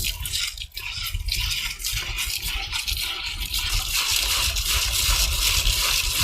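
Water sloshing and pouring while a batch of tiny freshwater snails is rubbed and rinsed clean of green algae, with irregular scraping and splashing throughout.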